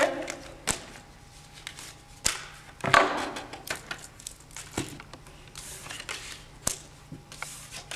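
A handful of separate short taps and clicks on a tabletop as a wallet, phone and watch are set down and playing cards are dealt, with quiet room tone between.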